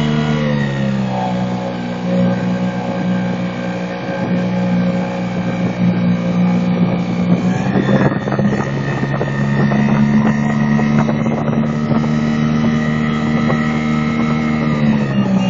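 Hangkai 4 hp outboard motor running under way, pushing a small inflatable boat. Its note drops about a second in, lifts a little about halfway through, and drops again near the end.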